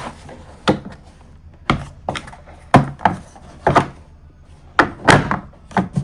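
Plastic socket wrench case being handled, its lid shut and its 3D-printed clasps snapped open and closed: a series of sharp plastic knocks and clicks, about nine in six seconds.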